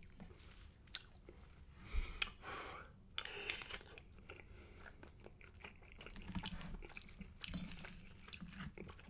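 Close-miked chewing of a mouthful of spicy rice with melted smoked gouda, with scattered clicks and scrapes of a wooden spoon in a stainless steel frying pan.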